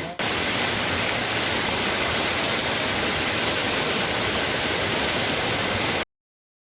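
Steady rushing of flowing stream water, cutting off abruptly about six seconds in.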